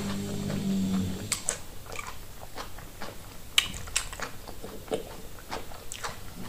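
Close-up chewing of soft plantain fufu with soup, mouth closed: irregular sharp mouth smacks and clicks. A low steady hum fades out about a second in.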